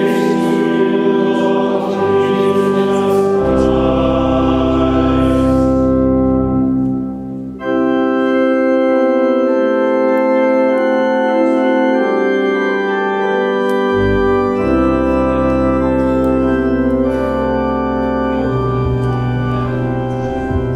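Church organ playing slow, sustained chords over a deep pedal bass, with a short break between phrases about seven seconds in.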